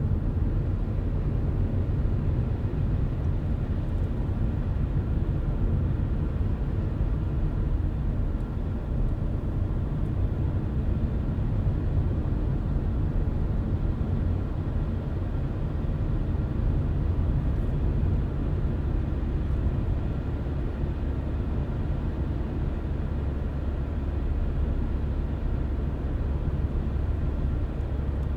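Car driving at a steady speed: a continuous low road and engine rumble with a faint steady engine hum.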